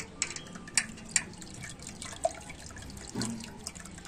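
Thick chilate (cacao, rice and sugar paste in water) dripping and trickling through a metal mesh strainer into a large pot, with a few sharp ticks in the first two seconds.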